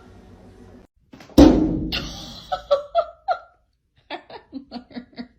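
A heavy thump, then two runs of short, quick bursts of laughter.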